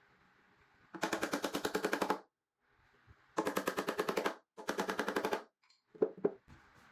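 A power tool hammering in three bursts of rapid, evenly spaced strokes, about a dozen a second and about a second each, followed by a couple of short clicks near the end.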